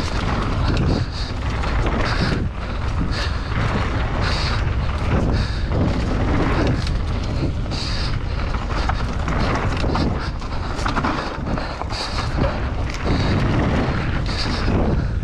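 Mountain bike descending a dirt singletrack at speed, heard from a camera on the rider: tyres rolling and rattling over the trail, with wind buffeting the microphone. Short high buzzes from the bike come in every second or so.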